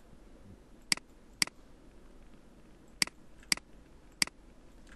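Computer mouse button clicking five times, sharp and short: a pair about half a second apart early on, another pair about two seconds later, and one more near the end.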